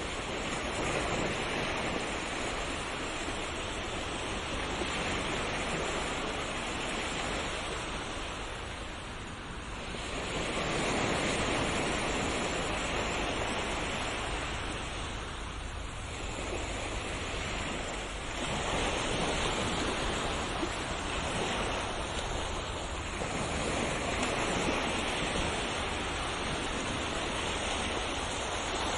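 Ocean waves breaking and washing on a shore, a steady surf hiss that swells and eases every few seconds.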